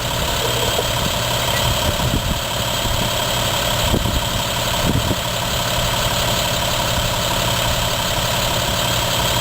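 Large vehicle engine idling steadily, an even low rumble.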